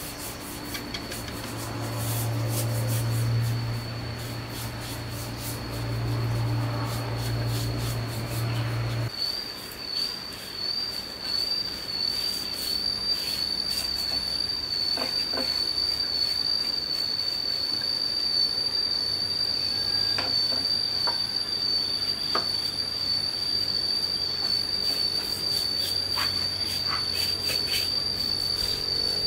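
Insects droning in one steady high-pitched tone, which grows louder about nine seconds in, with faint scratches of a paintbrush stroking stain onto wood. A low hum under the first nine seconds stops abruptly.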